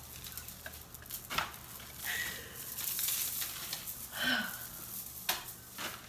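Paper rustling and crinkling as it is handled, with a few light knocks.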